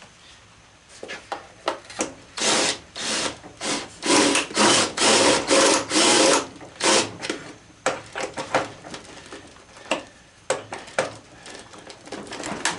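Tool work on a hollow plastic horse body: a run of short, harsh scraping and rasping bursts, then scattered sharp clicks and knocks of plastic as he works at a screw still holding the halves together.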